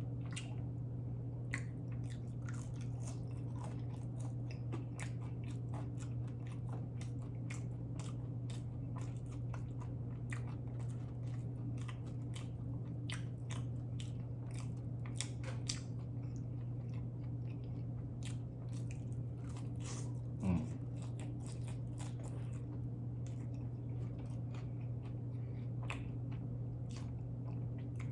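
Close-mic chewing and biting of a cheeseburger and fries, with many small wet clicks and crunches, over a steady low hum. One brief louder sound about twenty seconds in.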